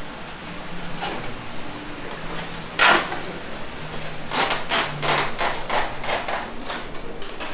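Market-stall clatter: a single sharp knock about three seconds in, then a quick run of knocks and clacks, with faint voices in the background.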